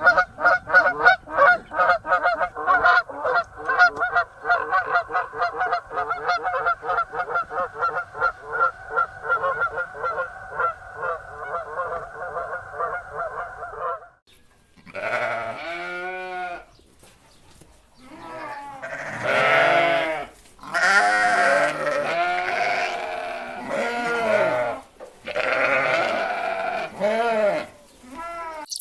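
A rapid, even run of short honking calls, about four a second, stops about fourteen seconds in. Then a goat bleats about four times, in long, wavering calls.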